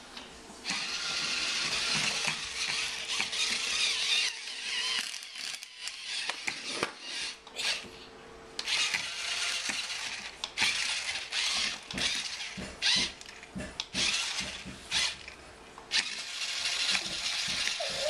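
Remote-control toy tarantula walking on a tile floor: its small geared motor whirs in stretches of a few seconds, stopping and starting several times, with ratcheting clicks from the leg mechanism.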